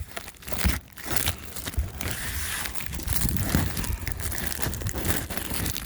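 A cardboard shipping box and its packing being handled and opened: irregular crinkling and crackling with scattered knocks.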